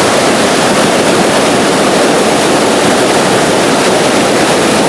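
Mountain trout stream rushing, a steady loud water noise.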